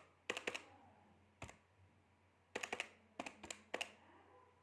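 Keys being tapped: sharp clicks in short runs of two to four, with pauses between, over a faint low hum.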